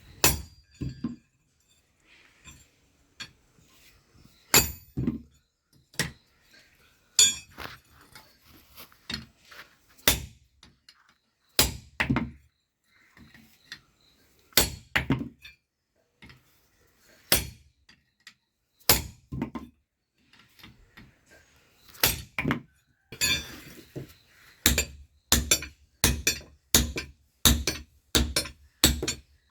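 Hand hammer striking hot steel rebar on an anvil while forging tongs: ringing metallic blows, at first spaced a second or more apart and often in pairs, then quickening about two-thirds of the way in to a steady run of about two blows a second.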